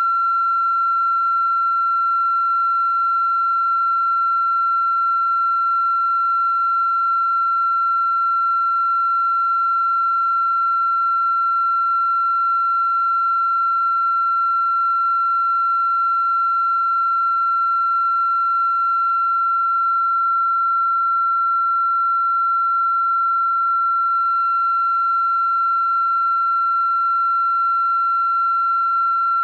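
A continuous electronic tone at one steady high pitch, like a test tone, unchanging in pitch and loudness.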